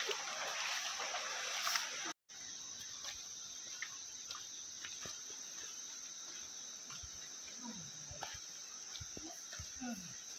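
Steady high insect chirring from the rainforest, with scattered crunches and knocks of footsteps on river stones and pebbles. For about the first two seconds the rush of a small stream over rocks is louder, then it cuts off suddenly.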